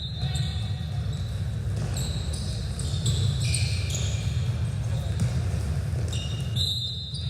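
Indoor court sounds during a youth club match: a steady low rumble of gym noise with several short, high squeaks like sneakers on the court floor.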